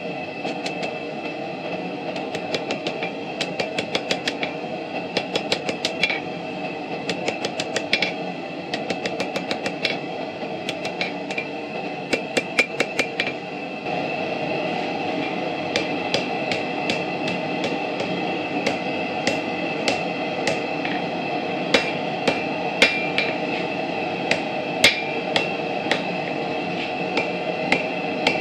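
Blacksmith's hand hammer striking a red-hot railroad spike on the anvil, shaping it into a bottle opener over the horn. The blows come in quick runs of several a second with short pauses, and each blow rings off the steel over a steady rushing background noise.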